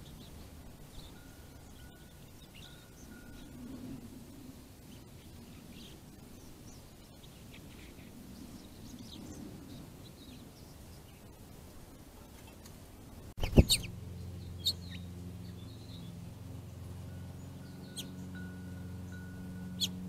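Faint, scattered chirps of small birds over outdoor background noise. About thirteen seconds in there is a sharp loud click, after which a steady low hum of several tones runs under the chirps.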